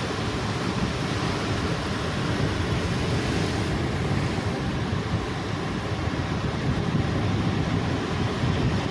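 Ocean surf breaking and washing on the shore, a steady low rushing, with wind buffeting the microphone.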